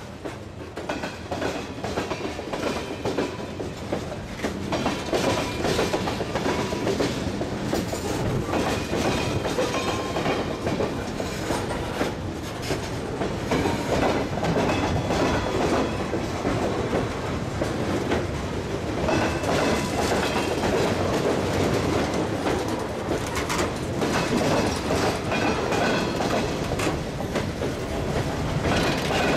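Freight cars of a manifest train (tank cars, covered hoppers, boxcars) rolling past close by, their steel wheels clattering over the rail joints in a continuous run of clicks over a steady rumble.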